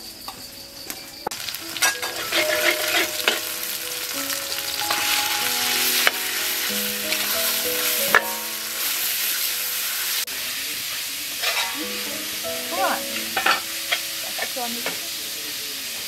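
Ground pork frying in oil in a steel wok, a steady sizzle that grows louder about two seconds in, with a metal ladle scraping and clanking against the wok as the meat is stirred.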